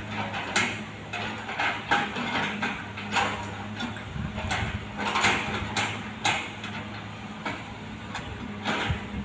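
Excavator's diesel engine running with a steady low hum that swells under load for a couple of seconds around the middle, with scattered clanks and knocks from the machine at work.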